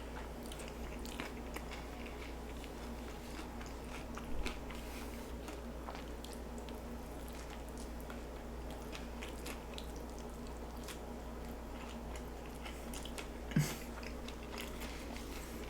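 Close-up chewing and crunching of a tostada, its crisp fried shell loaded with beef and toppings, heard as many small crackling clicks. There are louder bites about four seconds in and near the end, over a steady low hum.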